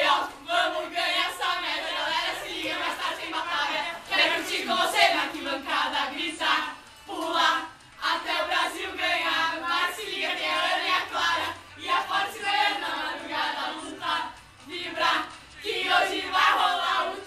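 A group of young women singing a song together in unison, in lively phrases with short breaks between them.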